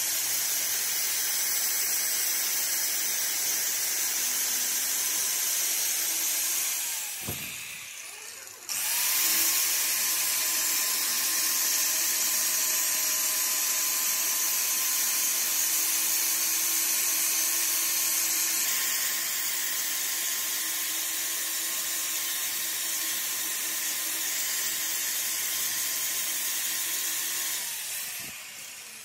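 Angle grinder grinding the teeth of a differential pinion gear being restored: a steady high motor whine over a grinding hiss. About seven seconds in, the grinder winds down and stops. A second later it starts again and runs steadily until it winds down near the end.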